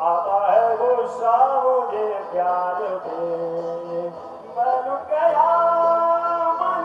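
A man singing with music behind him, long held notes sliding between pitches, with a short break about four seconds in.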